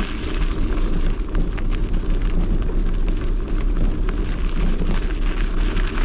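Goodyear Connector 700c x 50 mm gravel tyres rolling over a loose gravel road: a steady rumble and crunch, dotted with many small ticks of stones.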